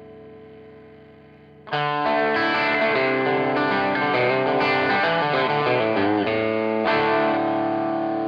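Electric guitar through an MXR DD25 Dookie Drive overdrive pedal: a held chord fades out, then about two seconds in a loud overdriven riff of changing chords is played for around six seconds and stops abruptly. The pedal's blend knob is set to mix in about 75% clean guitar.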